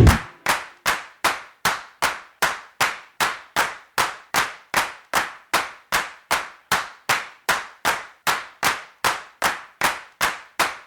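A lone sharp percussive hit repeating in strict, steady time, about two and a half a second, each dying away quickly: a stripped-down break in the music soundtrack.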